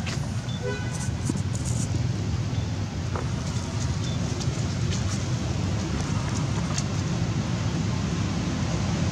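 Steady low outdoor rumble under a constant hiss, with a few faint clicks and, about half a second in, a short run of high chirps.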